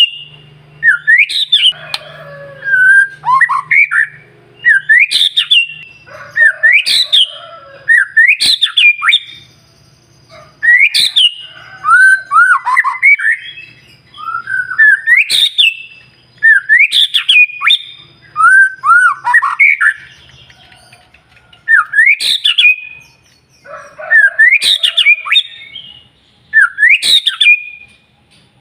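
White-rumped shama (murai batu) singing loudly: repeated phrases of quick rising whistles and sharp clicks, about one phrase every two seconds.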